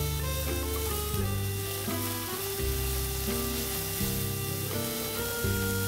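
Ground spice paste frying in oil in a pan and stirred with a spatula, sizzling. Background music with a series of held notes plays over it.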